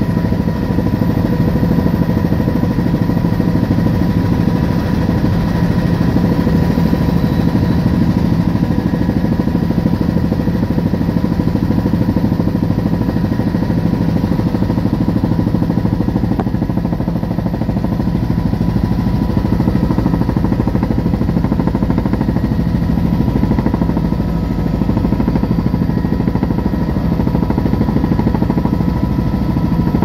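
Helicopter engine and rotor noise heard from on board: a loud, steady drone with a constant hum, unchanging as the aircraft flies over the forest.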